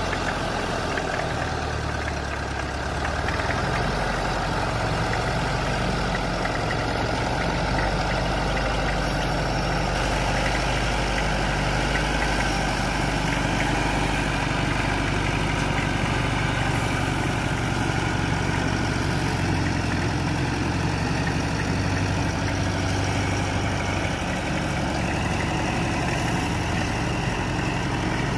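Homemade logging truck's diesel engine running steadily at low revs as the loaded truck creeps down a steep dirt slope.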